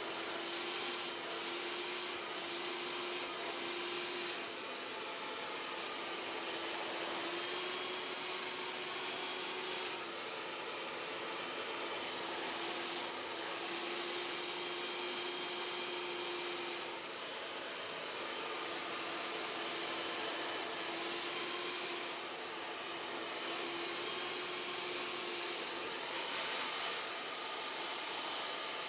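A handheld electric blower motor running steadily: rushing air over a humming motor tone that wavers slightly in pitch, the sound dipping briefly every several seconds as the tool is moved.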